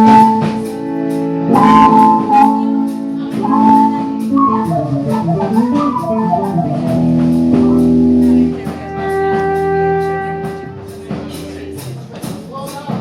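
Electric guitar played through an effects pedalboard being tested: long sustained notes, a descending run about halfway through, then held notes that fade away near the end.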